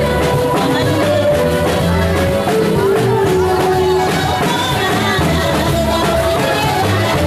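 Loud music with a steady bass beat and a held, sung or played melody line.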